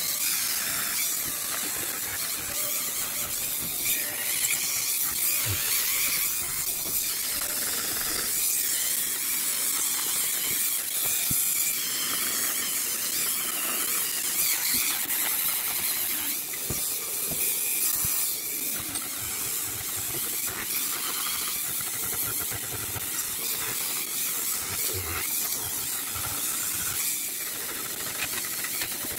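Handheld rotary tool fitted with a wire brush, running steadily and scouring the dry deadwood of a bonsai trunk: a continuous scratchy hiss.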